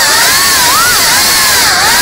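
GEPRC CineLog cinewhoop's motors and ducted propellers whining over a steady rushing hiss, the pitch swooping up and down as the throttle changes.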